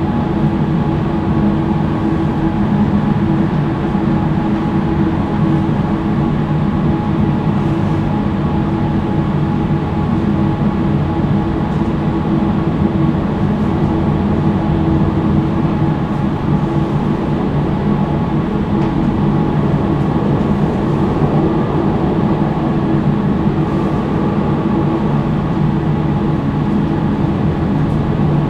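Tram running at steady speed, heard from inside the car: a steady hum of several held tones over the rumble of wheels on the rails, with a few faint clicks.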